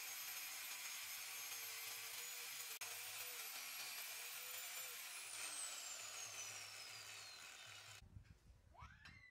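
Handheld angle grinder with a cut-off disc cutting into a flat steel plate: steady grinding noise with a high whine over it. About five seconds in, the whine falls steadily in pitch as the disc runs down. The sound drops off sharply near the end.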